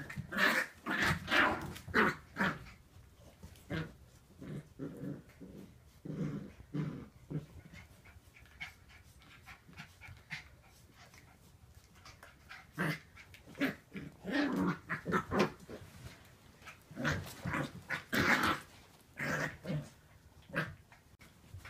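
Two wire fox terrier puppies play-fighting, growling in short bursts, with a lull in the middle.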